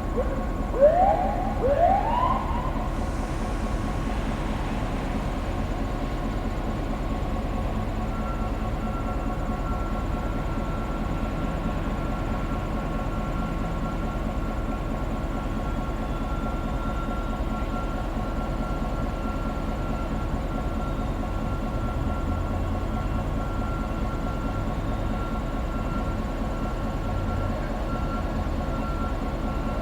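EMD GP9 diesel-electric locomotive with its 16-cylinder 567 engine running steadily while switching cars. A few short rising whoops, like a siren chirping, sound in the first couple of seconds and again at the very end, and a thin steady high tone comes in about eight seconds in.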